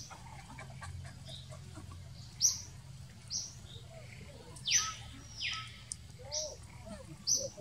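Short, high-pitched chirping calls repeating roughly once a second, with two longer calls sliding down in pitch about five seconds in, over a steady low hum.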